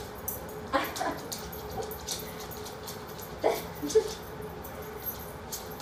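Small dog making a few short, high whines, about four over several seconds, over a faint steady hum.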